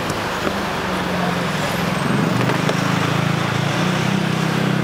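Street traffic: a vehicle engine running steadily close by with a low hum, a little louder about two seconds in, over general street noise.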